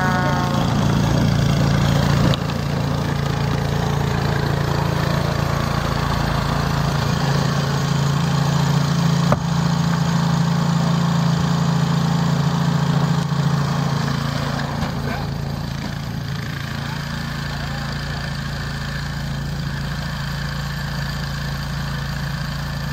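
Walk-behind snow blower's small engine running steadily, with one sharp knock about nine seconds in. About fifteen seconds in, the engine note gets quieter and stays so.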